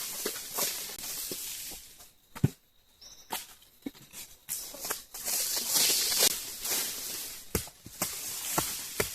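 Rustling with scattered short knocks and footsteps, as of someone moving about and handling things, with a brief lull about two seconds in.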